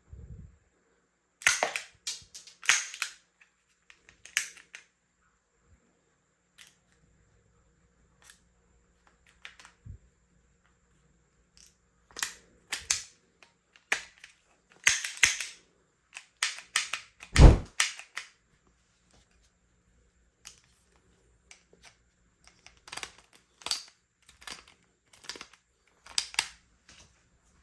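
Spring-powered toy guns being cocked and fired, making sharp mechanical clicks and snaps in irregular clusters with pauses between. The loudest snap, about two-thirds of the way through, has a deeper thump.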